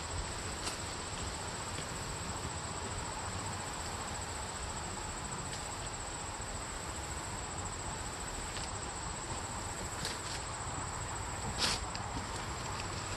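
A steady, high-pitched insect chorus running without a break, with a few faint clicks and a soft knock near the end.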